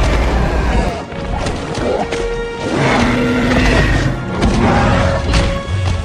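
Film soundtrack: dramatic score music with loud crashing impacts and booms from monster-battle sound effects, several sharp crashes landing over the music.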